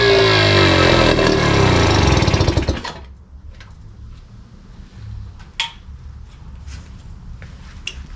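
British Seagull single-cylinder two-stroke outboard motor running loudly with its pitch wavering slightly, then cutting off abruptly about three seconds in. A couple of faint knocks follow.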